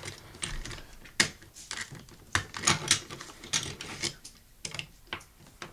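A die-cast Hot Wheels toy truck being handled on a wooden tabletop: irregular light clicks and taps as its hinged cab and body parts are worked open.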